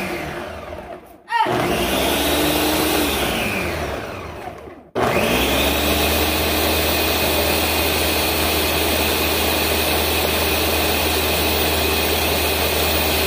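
Countertop blender blending a chile-and-mayonnaise salsa. The motor winds down and stops about a second in, starts again and winds down to a stop after a few seconds, then starts once more and runs steadily.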